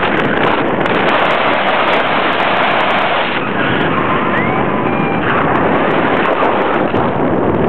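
Loud, steady wind rushing over the microphone of a paraglider pilot in flight, with a few faint short tones about halfway through.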